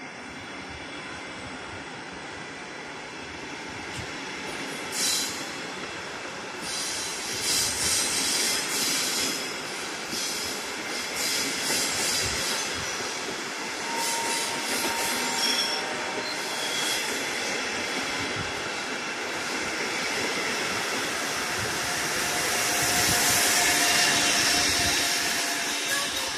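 A departing passenger train of double-deck coaches rolling past along the platform, wheels running over the rails with repeated short high squeals. The sound grows louder toward the end as the Bombardier Traxx electric locomotive at the rear goes by.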